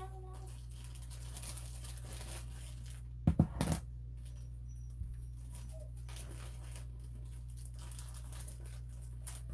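Small pastel-tool sleeves and their packaging being handled and rummaged through, with faint rustling and two sharp clicks close together about three and a half seconds in. A steady low electrical hum runs underneath.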